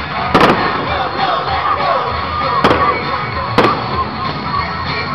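Fireworks shells bursting overhead, three sharp bangs, the first about half a second in and the next two close together near the middle. Beneath them a crowd of spectators talks and children shout throughout, with music playing.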